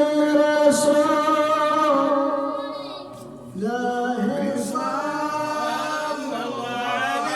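A man chanting unaccompanied in a drawn-out melodic religious recitation. He holds one long note that fades out about three seconds in, then starts a new wavering, sustained phrase.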